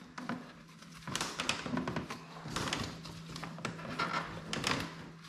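Plastic air intake runner and tubes being handled and pressed into place on an engine: irregular clicks, creaks and rustling of plastic and rubber.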